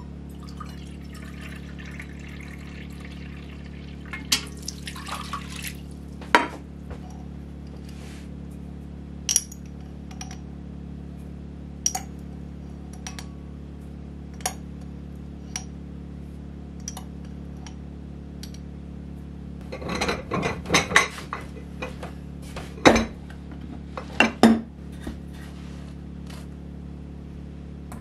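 Water poured from a kettle into a metal measuring cup over a stoneware bowl, then scattered clinks of spoons, cups and glass jars while bread ingredients are measured, with a burst of louder clattering about twenty seconds in. A steady low hum from a generator runs underneath.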